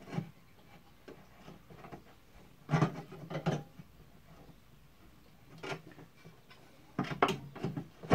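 Cast aluminum table of a benchtop band saw being worked onto its tilting mount: a few short knocks and scrapes of metal on metal, a pair about three seconds in and a cluster near the end.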